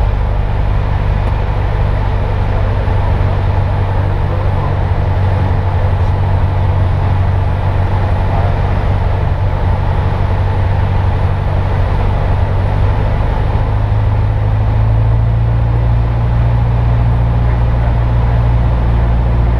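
Engine and propeller of a light single-engine piston aircraft in flight, heard inside the cabin as a loud, steady drone with rushing air noise. The drone's pitch rises slightly about two-thirds of the way through.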